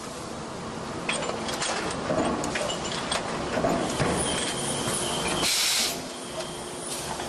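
JKP-650 cold forging press with automated part handling running: steady machine clatter with scattered clicks and knocks, and a short burst of hiss about five and a half seconds in.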